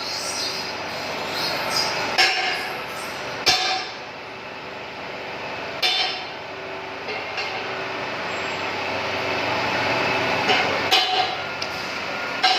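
Workshop machinery running steadily with a few steady tones in its noise. Over it come irregular sharp metallic knocks and clinks, a cluster of them near the end.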